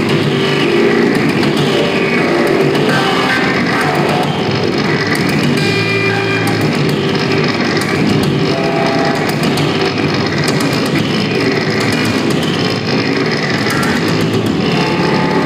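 Harsh noise music played live: a loud, unbroken wall of distorted noise with wavering, sweeping tones and dense crackle on top.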